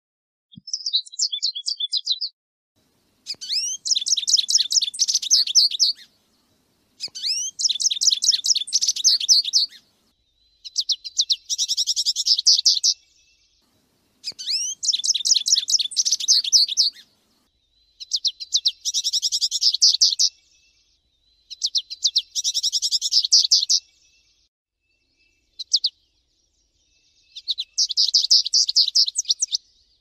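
American goldfinch singing: a run of about eight rapid, high twittering phrases, each two to three seconds long, with short silent gaps between them.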